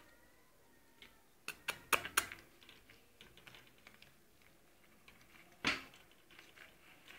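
Scattered light clicks and taps from degus moving about a small wire cage on cardboard, a quick cluster of them about a second and a half in, then faint ticks and one louder knock near the end.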